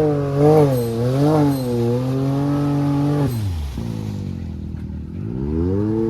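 Can-Am ATV engine revving: three quick blips of the throttle, held high for about two seconds, then dropping off. A little over five seconds in it revs up again and holds.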